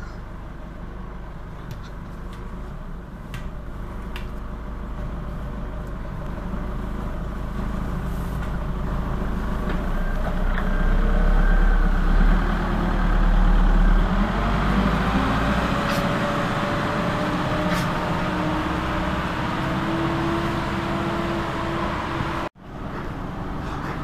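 Merlo 37.10 telehandler's diesel engine running under load, growing louder through the middle with its note climbing and then holding steady. The sound drops out for an instant near the end.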